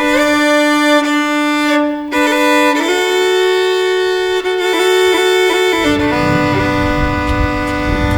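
Background music of bowed strings holding long, sustained notes that change pitch a few times. A low rumble joins about six seconds in.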